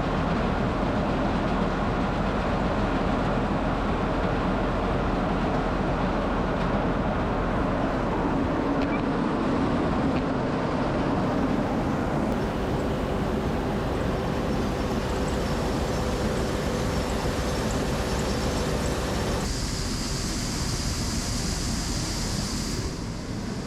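Farm machinery running steadily: a tractor engine driving a grain auger, with a constant hum through the noise. About twenty seconds in the sound changes, the middle dropping away and a high hiss coming in.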